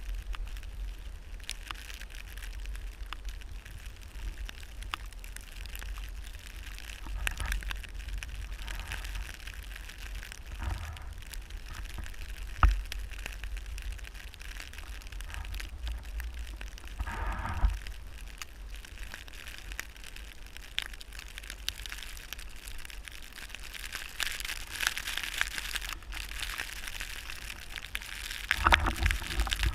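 Snowboard scraping and crunching over snow, with wind buffeting the microphone as a steady low rumble. There is a sharp crack about halfway through and short louder scrapes later on.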